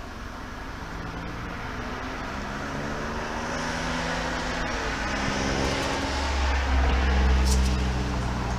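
A motor vehicle's engine going by: a hum that builds over several seconds and is loudest near the end, with a deep rumble in the last couple of seconds.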